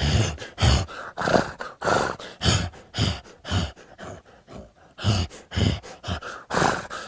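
Horse breathing sound effect: heavy breaths in quick succession, about two a second, easing off briefly around four seconds in before picking up again. It is one layer of a layered horse-gallop sound.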